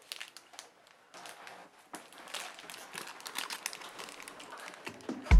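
Irregular crinkling and rustling, a scatter of small crackles. Loud bass-heavy music cuts in abruptly at the very end.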